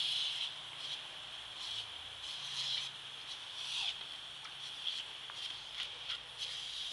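Thin jet of water hissing steadily from a ground-level nozzle. Louder splashing swells and spatters come several times as a dog bites and paws at the spray.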